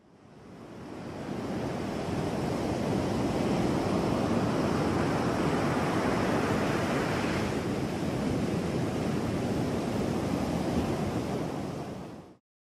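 Sea surf washing on a shore, a steady rush of waves that fades in over the first couple of seconds and cuts off suddenly near the end.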